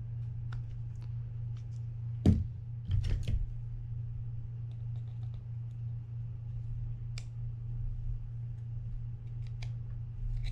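Small metal clicks and knocks from a small screwdriver working in a metal reel rotor to back out a broken screw. One louder knock comes about two seconds in and a short cluster a second later, over a steady low hum.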